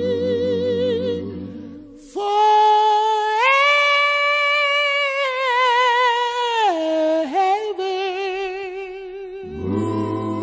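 Male a cappella gospel group singing in harmony. A lead voice holds long notes with vibrato, climbing about three seconds in and falling back later, while the low backing voices drop out about two seconds in and return near the end.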